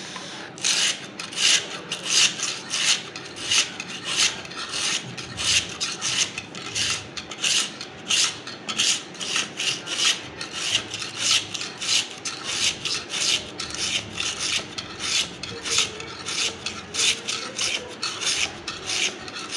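Sharpening stone on a guided wooden jig rasping back and forth along a steel kitchen-knife edge, about two strokes a second. The strokes start about half a second in.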